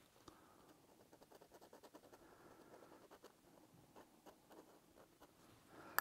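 Faint scratching of a dip pen's metal nib drawing short, rapid strokes on sketchbook paper.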